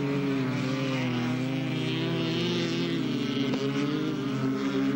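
Racing car engines running at speed on an ice track, their note holding steady with a slight up-and-down waver, over a steady hiss.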